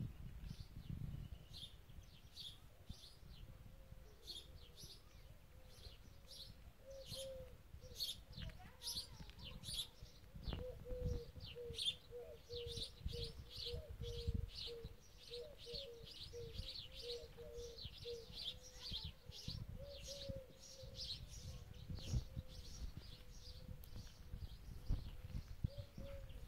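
Wild birds chirping and singing in short high calls throughout, with a run of lower repeated cooing notes through the middle, typical of a dove. Irregular low rumbling runs underneath.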